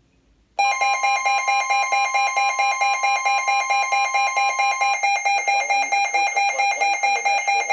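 Emergency weather alert tone from a NOAA Weather Radio broadcast: a loud electronic alarm of steady high tones, pulsing several times a second. It starts about half a second in, and one of its tones drops out about two thirds of the way through.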